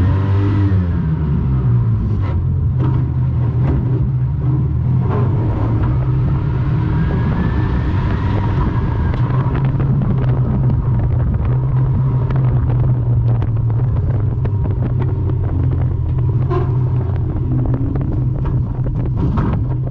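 Onboard sound of a Morris 1100 banger racing car's engine running steadily as the car moves off and drives around the track, with a whine that rises and falls twice and frequent short knocks and rattles.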